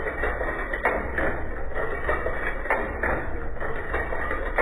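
Outsole stitching machine running, with a low motor hum under a clatter of repeated knocks, roughly two or three a second, as it stitches a double leather sole onto a welted shoe.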